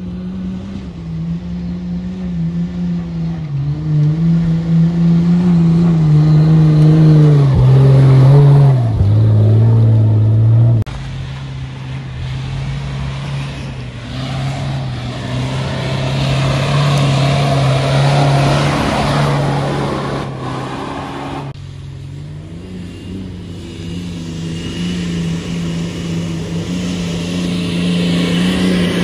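Off-road 4x4's engine revving hard under load, its pitch rising and falling. It dips lower and then cuts back sharply about eleven seconds in, runs steadily after that, and climbs again near the end.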